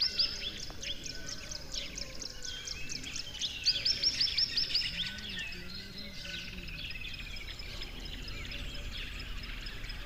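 Several birds singing and chirping together in open farmland, with a loud run of rapid, high, downward-sweeping notes at the start and again about three and a half to five seconds in, over a steady outdoor background.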